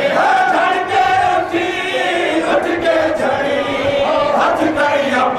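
Men's voices chanting a noha, a Shia lament, as a lead reciter and a dense crowd of mourners chant together, unaccompanied. A few sharp hits break in around the middle and again near the end.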